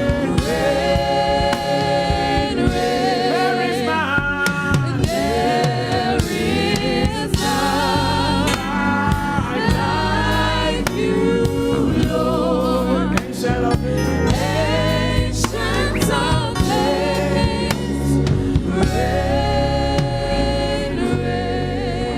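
Gospel worship music: several voices singing held, wavering notes over a steady low accompaniment.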